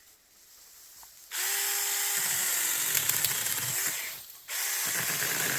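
Saker mini cordless electric chainsaw running in two bursts, the first about three seconds long and the second shorter, as it cuts through a bent-over young tree. Its motor whine sags a little in pitch under the load of the cut.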